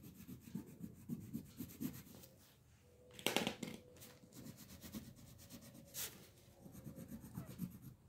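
Crayon scratching on paper in quick back-and-forth shading strokes, faint. The strokes come about three a second at first, pause, then there is a louder rustle of the sheet a little after three seconds in and a short sharp one at about six seconds, before more light strokes.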